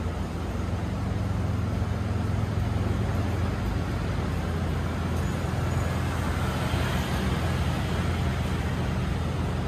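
Steady city road-traffic rumble, with a slight swell about six to seven seconds in.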